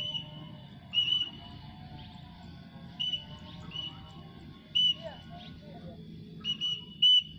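A series of short, high whistle toots, repeated about every one to two seconds: the handler's call to bring a flying pallow bird back down.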